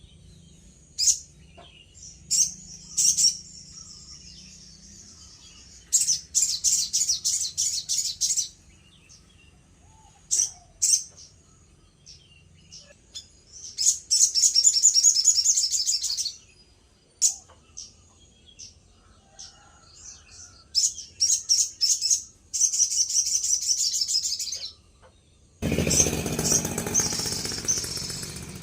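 A sogon songbird singing vigorously in bouts of rapid, high-pitched chattering trills and short sharp notes, separated by brief pauses. In the last few seconds a loud rushing hiss joins the song.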